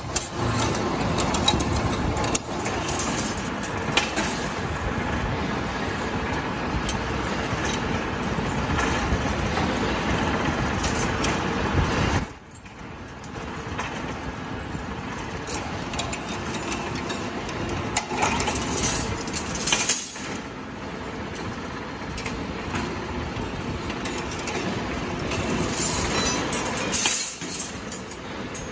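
Scrap-steel wire straightening machine running: its electric motor and gearbox drive the straightening rollers while a length of scrap steel wire rattles and scrapes through the guides. A sudden loud hit comes about twelve seconds in, after which the machine runs a little quieter.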